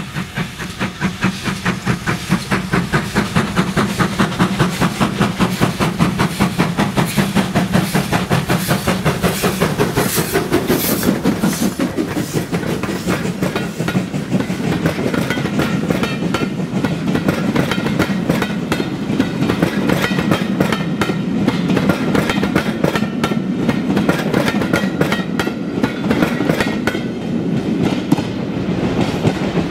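GWR Modified Hall class 4-6-0 steam locomotive 'Witherslack Hall', a two-cylinder engine, working a passenger train away from a station: a fast, even beat of exhaust through the first twelve seconds or so. Its carriages then roll past, wheels clicking over the rail joints, easing a little near the end.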